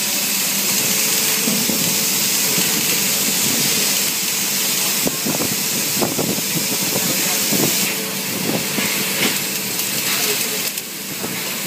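Robotic MIG welding arc on a steel exhaust pipe: a steady hiss with a run of sharp crackles and pops in the middle.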